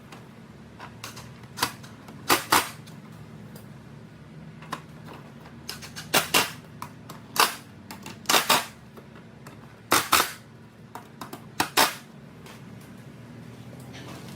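Sharp plastic snaps and knocks as aftermarket grille parts are pressed and clipped into place on a Mustang. There are about a dozen loud clicks, several coming in quick pairs, over a faint steady hum.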